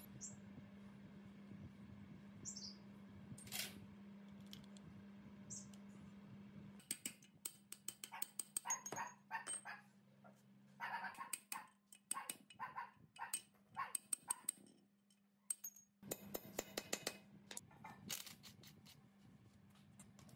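Hammer strikes on the cast-iron housing of a double-shaft adhesive tape cutting machine during disassembly: a quick, irregular run of sharp metallic knocks, some of them ringing, starting about seven seconds in over a steady low hum.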